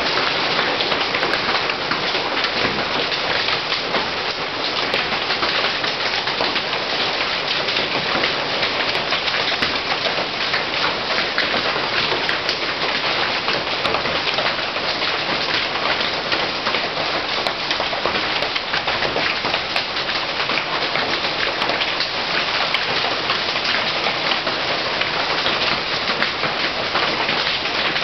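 Hail falling with rain onto concrete paving and garden plants: a steady, dense sound of countless small impacts.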